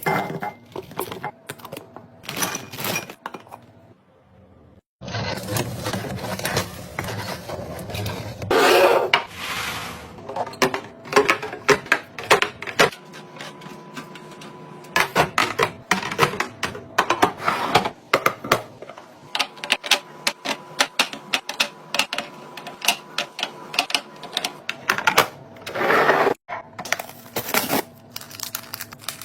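Kitchen containers and packaging being handled and set down: a quick run of clicks, taps and light knocks, with a few short rustling spells, broken by brief pauses about four seconds in and near the end.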